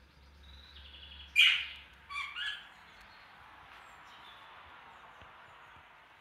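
Pet budgerigars calling: one loud sharp call about a second and a half in, then a few shorter calls stepping in pitch, over a faint steady background.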